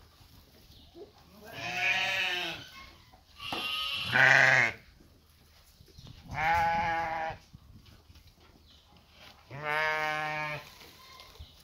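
Sheep bleating four times, each call about a second long and wavering in pitch. The second call is the loudest.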